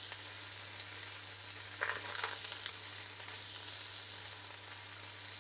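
Cauliflower florets sizzling steadily in hot garlic-infused rapeseed oil in a frying pan as they are turned, with a couple of light knocks about two seconds in.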